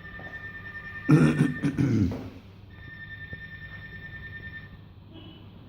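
Phone ringtone: a thin steady electronic tone in repeated rings of about two seconds each. About a second in, a child's loud vocal noise cuts across it.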